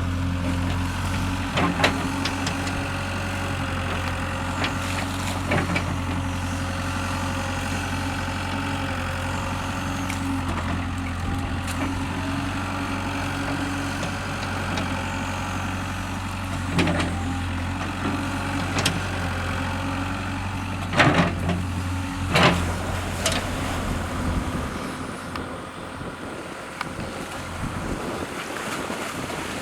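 Hitachi hydraulic excavator's diesel engine running steadily, with several sharp metallic knocks from the working machine. The engine hum drops away about 24 seconds in.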